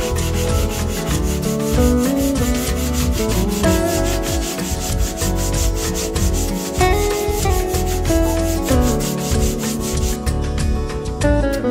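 Hand-sanding a chalk-painted pine tabletop with a sanding pad: repeated scratchy rubbing strokes over the white stencilled paint, stopping near the end. Guitar background music plays underneath.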